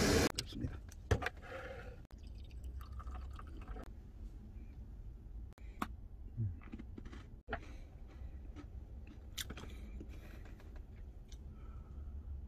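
Light clicks and taps of a moka pot, glass cup and coffee things being handled on a tabletop, over a low steady hum. A short hiss cuts off just after the start.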